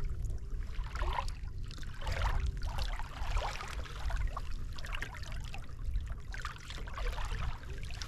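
Small waves lapping and splashing irregularly against a plastic fishing kayak's hull, over a steady low rumble of wind on the microphone.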